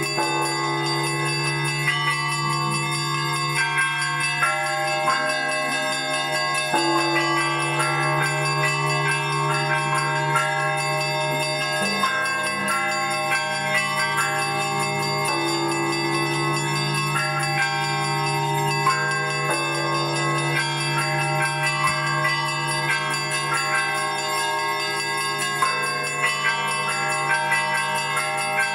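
Russian Orthodox church bells rung in a continuous peal: small bells struck in a fast, busy rhythm over middle bells, with a deep bell's long hum underneath. The low hum shifts about twelve seconds in as the bass bell sounds again.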